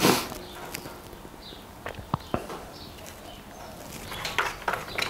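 Steel bolts being handled and picked out of a parts bin: one sharp knock at the start, then scattered light clicks and clinks with quiet between them.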